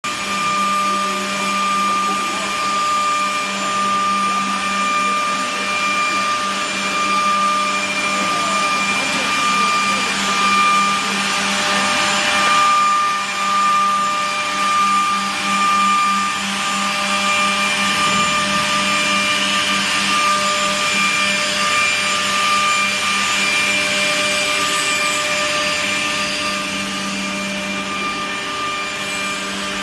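Automatic edge banding machine running: a steady motor hum with a high, constant whine over an even rushing noise.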